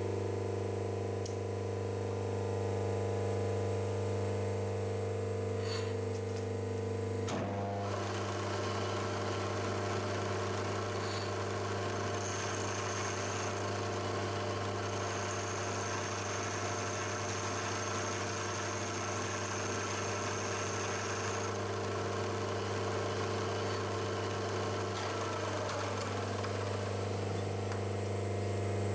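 Milling machine spindle running steadily, with an end mill side-milling the end of a steel part from about seven seconds in until near the end. The cut adds a rough cutting chatter and, for part of it, a thin high whine.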